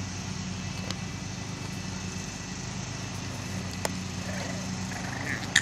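Steady low mechanical hum, like an engine or motor running, with a few faint clicks.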